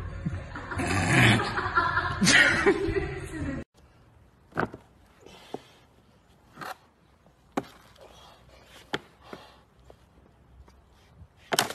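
A person laughing loudly for a few seconds, cut off suddenly. Then a quiet stretch with a handful of short, sharp clicks and knocks.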